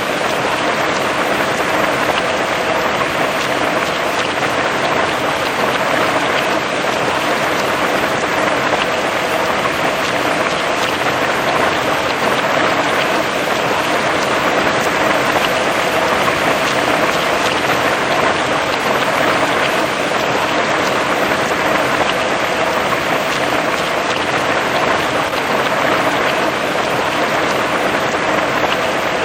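Heavy rain falling steadily on grass and tree leaves, an even, unbroken hiss of countless drops.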